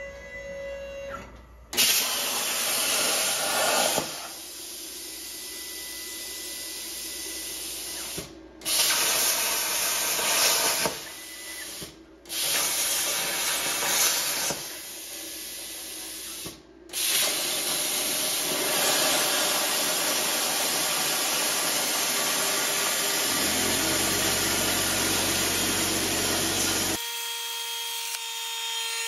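Air plasma cutter (Hynade CUT60DN) on a CNC table cutting steel plate: a loud, steady hiss of the arc and its air that starts abruptly about two seconds in, drops out briefly three times, and cuts off abruptly near the end, where the arc is lost as the torch runs off the edge of the plate.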